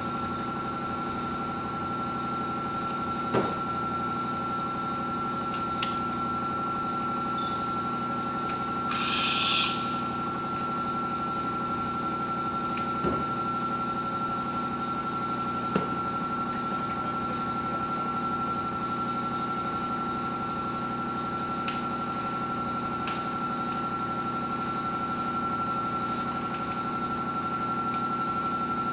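Steady machine hum with a high whine running throughout, with a few light clicks of bicycle parts being handled and one short hiss about nine seconds in.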